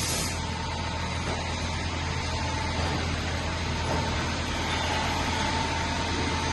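EMCO Turn 332 CNC lathe running steadily, a low machine hum with a faint steady whine; a hiss dies away just after the start.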